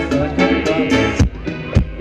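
Band playing Thai ramwong dance music: a steady drum beat of about four strokes a second under pitched instrumental melody, which thins out about a second in, leaving mostly the drum strokes.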